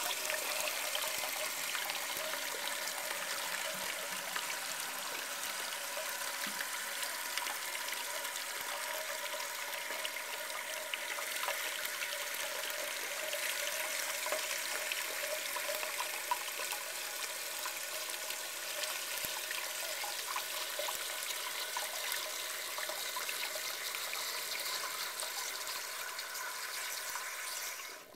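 1999 Cisa toilet flushing and its tank refilling: a steady rush of running water that stops abruptly near the end.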